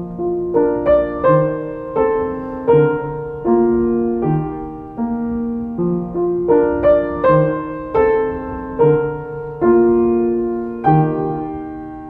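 Soft solo piano music: a slow melody of single notes over low bass notes, each struck and left to ring, trailing off near the end.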